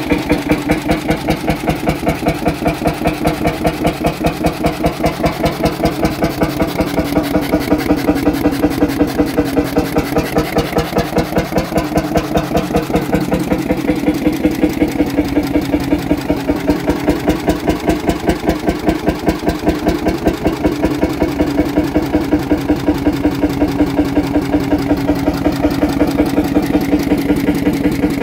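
40 hp hot bulb engine running with a fast, even beat, governed up to its rated 325 rpm. A wooden plank is pressed against its belt pulley as a brake to load it, and the engine holds its steady beat under that load.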